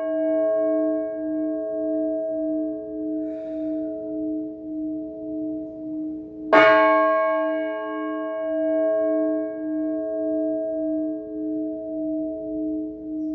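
Orthodox church bell struck once about six and a half seconds in, each stroke ringing out long with a pulsing hum as it slowly fades; at the start the previous stroke is still dying away.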